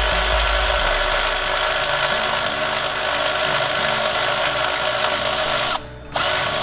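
Milwaukee cordless electric ratchet running steadily, spinning a valve cover bolt loose on a 5.9 Cummins diesel. It stops for a moment near the end, then runs again briefly.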